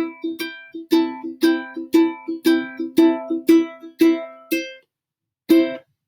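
Ukulele strummed in a steady rhythm, about two main strokes a second with lighter strokes in between. The strumming stops about five seconds in, and one lone strum follows.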